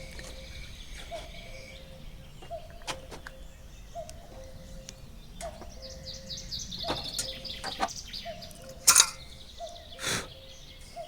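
Birds calling outdoors. A short low note repeats about once a second, and a higher warbling trill comes in the middle. Two sharp knocks sound near the end.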